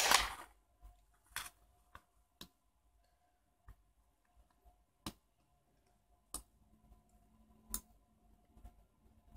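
Small sharp clicks and taps of metal parts as a titanium-handled folding flipper knife is taken apart by hand, about eight of them at uneven intervals a second or so apart, after a short rustling scrape at the very start.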